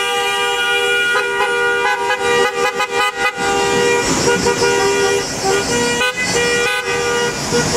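Car horns honking in a convoy, held in long steady blasts and broken by a quick run of short toots about two and a half seconds in.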